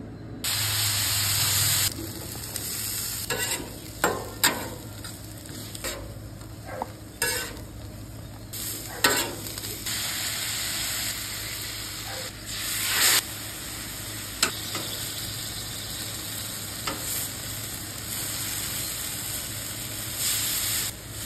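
Food sizzling steadily on a hot flat-top griddle, with a loud hiss of aerosol cooking-oil spray about half a second to two seconds in and scattered sharp clicks and scrapes of metal tongs against the griddle surface.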